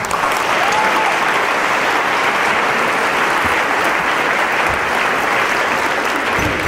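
Audience applauding: the clapping breaks out all at once and holds steady.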